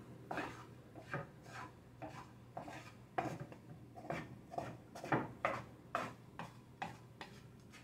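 Wooden spoon scraping and stirring fried rice around a frying pan, in short repeated strokes about twice a second.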